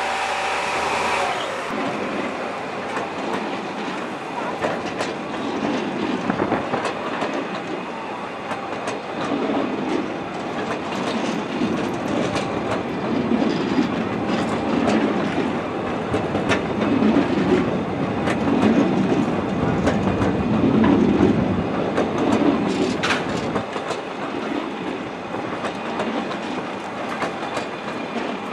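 A 90 cm narrow-gauge passenger train rolling slowly past, its carriage wheels rumbling and clacking over the rail joints. In the first second or so, before the change, a diesel locomotive's engine runs.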